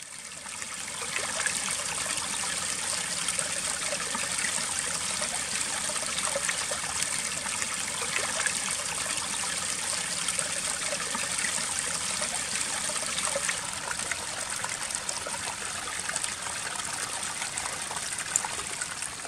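Small garden waterfall: water trickling and splashing steadily over stacked stones into a backyard pond.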